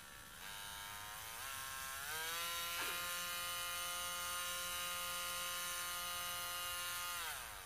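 Small handheld black pen-style electric nail drill (e-file) motor whining. Its pitch steps up in several jumps over the first two seconds as the speed is turned up, holds steady at high speed, then winds down near the end as it is turned off.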